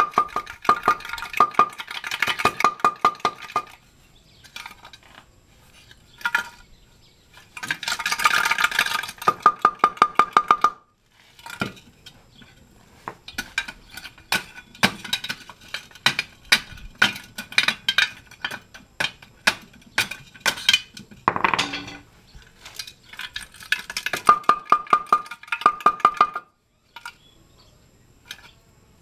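A hammer beats rapidly on a flathead screwdriver or bar driven into a catalytic converter's metal shell, breaking up the clogged ceramic honeycomb inside. The blows come in four bursts with clanging and ringing metal, and lighter taps and clinks of loose pieces fall in the pauses.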